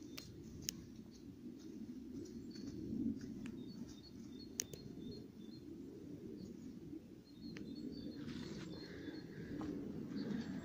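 Faint small birds chirping in short high notes, over a steady low outdoor rumble, with a few sharp clicks.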